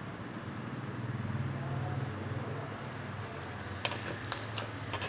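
Slime being squeezed and pressed by hand, giving a run of sharp clicks and pops from trapped air, starting near the end. Underneath is a steady low hum that swells for a couple of seconds and then eases.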